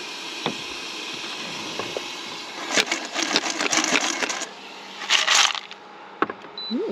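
Pipi shells clattering and rattling in a frying pan on an induction cooktop as the pan is handled, with scattered clicks first and a dense run of rattles in the middle. About five seconds in there is a short burst of steam hiss as the lid comes off the steaming shells.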